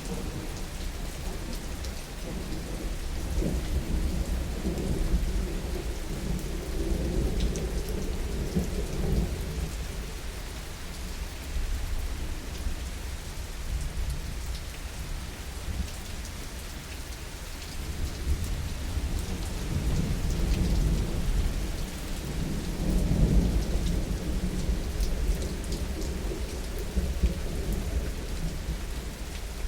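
Steady heavy rain with two long, low rolls of thunder, one a few seconds in and one about two-thirds of the way through.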